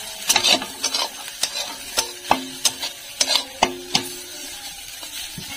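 A metal spoon stirring and scraping roasted wild mushrooms in a metal pan. It strikes the pan about a dozen times at an uneven pace, and several strikes leave a short metallic ring.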